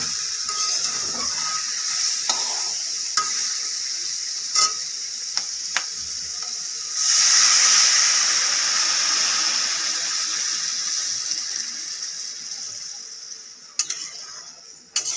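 Seeded banana pieces sizzling in hot mustard oil in a steel kadai, with a steel spatula clicking and scraping against the pan. About seven seconds in, water poured into the hot pan sets off a sudden loud hiss of sizzling that slowly dies down as the water heats.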